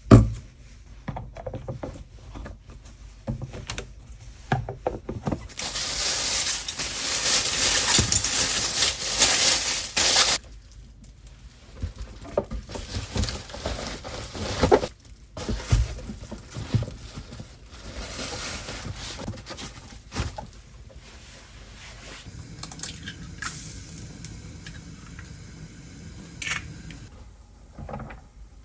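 Kitchen preparation sounds: scattered knocks and clatter of utensils and dishes, with a loud steady hiss for about five seconds starting some five seconds in.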